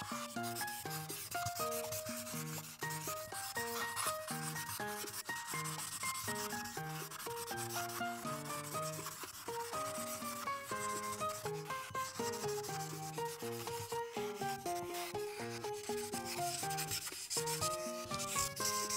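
Felt-tip art marker scrubbing back and forth across paper, a steady scratchy rubbing as a large area is filled in. Under it runs background music, a simple melody of short single notes stepping up and down.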